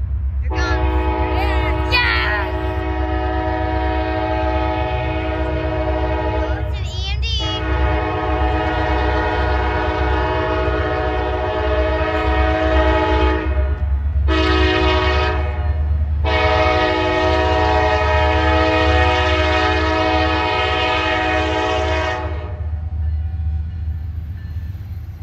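Norfolk Southern diesel freight locomotive's multi-chime air horn sounding the grade-crossing signal: two long blasts, one short, then a final long blast. A steady low rumble of the approaching train runs underneath.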